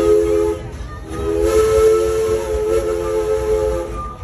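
Steam locomotive whistle blowing a chord of several notes. One blast cuts off about half a second in, and a second long blast runs from about a second in until just before the end. The moving train's low rumble runs beneath it.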